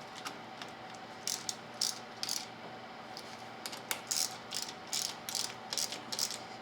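Ratchet wrench clicking in short, irregular runs while tightening the brake lever clamp bolts (8 mm heads) on the handlebar, over a steady low hum.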